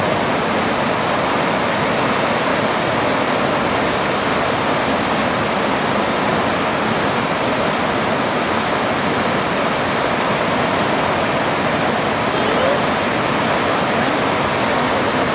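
Koosah Falls and the whitewater below it: a loud, steady rush of falling and churning water with no break.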